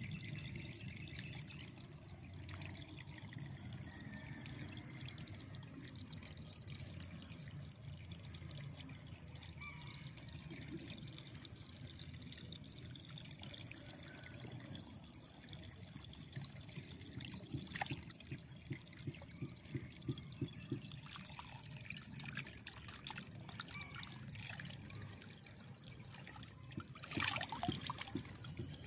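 Shallow water trickling through a gap dug in a mud bank between flooded rice fields, with small wet ticks as a hand works the mud. Near the end come a run of louder splashes.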